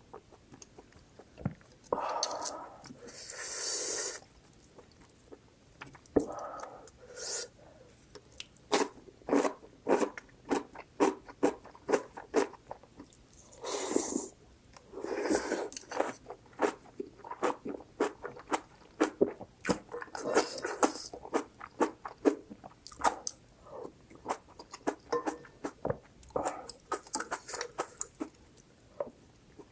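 Close-miked eating of spicy instant ramen with kimchi and rice: chewing and crunching with many quick wet mouth clicks, broken by a few longer noisy stretches.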